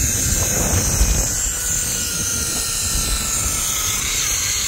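Zip-line trolley pulleys running along the steel cable with a steady whirring whine, over wind rushing and buffeting the microphone during the ride.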